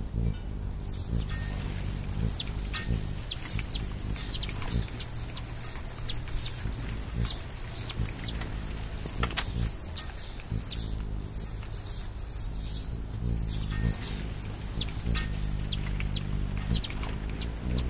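Nature ambience of a steady high insect trill, like crickets, that drops out briefly at the start and again about two-thirds of the way through, with many short scattered chirps over a low steady drone.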